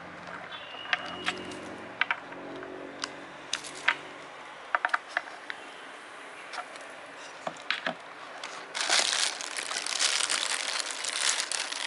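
Packaging being handled: scattered light clicks and taps, then from about nine seconds in a few seconds of loud, dense crinkling of plastic wrapping.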